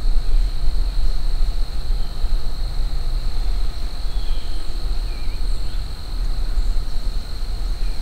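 Low rumble of wind on the microphone, with a thin, steady high-pitched whine throughout.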